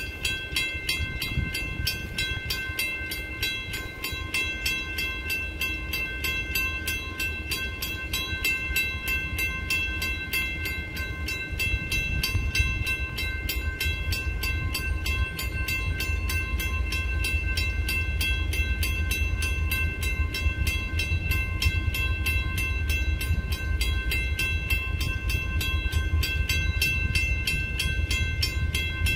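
Railroad grade crossing bell ringing continuously in rapid, evenly spaced strokes while the crossing is activated ahead of an approaching train. A low rumble runs underneath and grows a little louder about halfway through.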